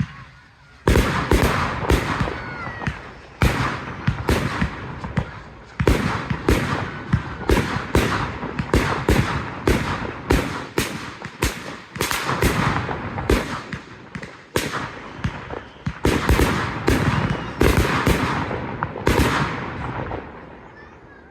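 Fireworks display barrage: dozens of aerial shell bursts going off in quick succession, sharp bangs over a continuous crackling haze, dying away in the last second or so.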